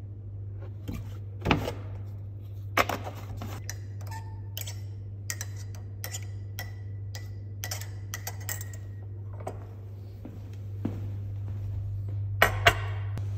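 Sharp clinks and knocks of crockery and a spoon while tea is made, a few ringing briefly, the loudest two close together near the end, over a steady low hum.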